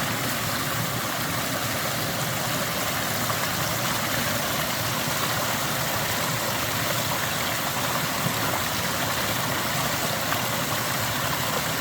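Mountain stream water flowing steadily, an even, continuous rush close by.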